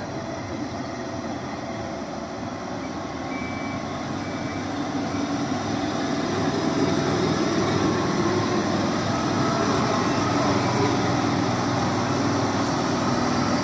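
Diesel engine of a loaded Tata Prima dump truck running as it drives up and past, growing louder from about halfway through. Two short high beeps sound a few seconds in.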